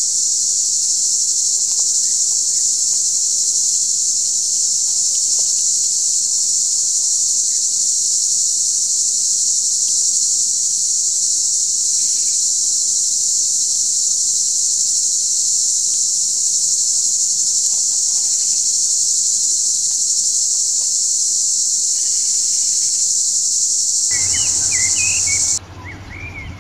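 Loud, steady, high-pitched drone of a chorus of insects, unbroken until it cuts off suddenly near the end, leaving a few short chirps.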